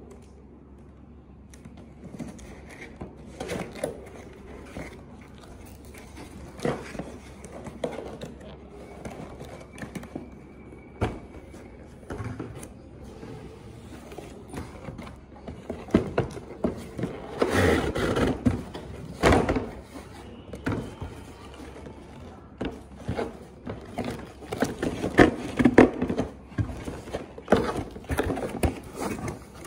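Cardboard boxes and packaging being handled and opened: irregular thunks, scrapes and rustles, with busier, louder handling about halfway through and again near the end.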